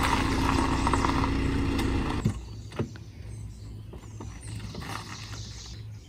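BMW X1 SUV's engine idling with a steady hum, then switched off about two seconds in. Afterwards there is a quiet low hum and a click or two.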